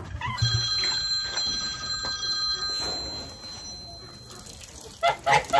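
Electronic ringing: several steady high tones sound together for about two and a half seconds and then stop. Near the end come two short loud calls.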